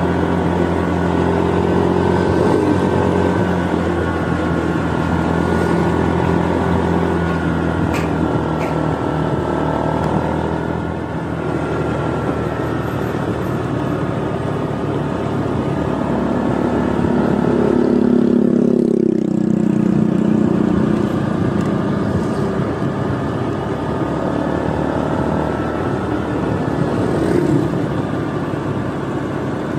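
Minerva GTR 150 automatic motorcycle's engine running steadily on the move, under wind and road noise. About two-thirds of the way through, a deeper engine note swells and fades.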